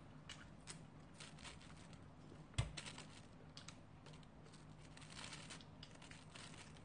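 Faint eating sounds: scattered light clicks and rustles of chopsticks working in takeaway containers and plastic wrapping, with one sharp knock about two and a half seconds in.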